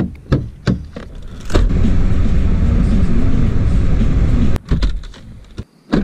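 Car door latch clicking as the door is opened, followed about a second and a half in by the loud, steady rumble of the car driving, road and wind noise, which cuts off suddenly near the end before a few more door clicks.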